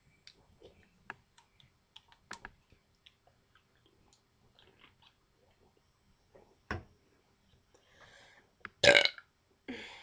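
Faint clicks and swallowing while drinking, then a loud deliberate burp by a young woman about nine seconds in.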